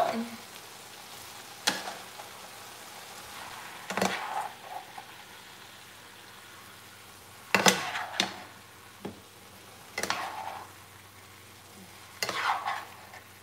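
Meat chunks sizzling in a frying pan as they are browned, with a steady hiss. A metal utensil scrapes and clacks against the pan in short bursts every two to three seconds as the meat is stirred and moved.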